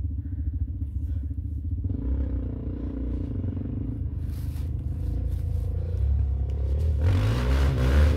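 Quad bike engines running, led by a Suzuki LTZ sport quad that grows louder as it drives closer; about seven seconds in it gets much louder and revs up and down.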